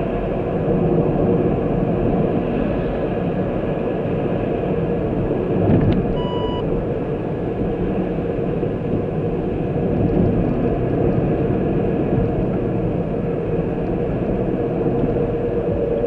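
Car driving on a road, with steady engine and road rumble. About six seconds in there is a click and then a short electronic beep.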